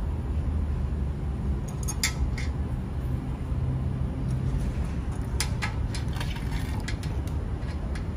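A few light metal clicks as small screws are handled and set into the fuel pump's mounting flange on a motorcycle fuel tank: one about two seconds in and a cluster between five and seven seconds in, over a steady low rumble.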